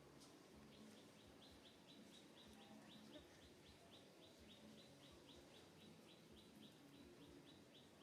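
Faint, rapid chirping: a short, high call repeated evenly about five times a second, starting just under a second in.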